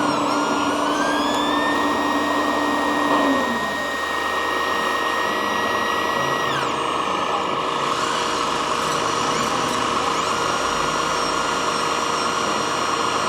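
Electric motor and hydraulic pump whine of a radio-controlled mobile excavator model at work. Several whining tones rise in pitch, hold, and drop off suddenly about six and a half seconds in, then rise again twice near the end.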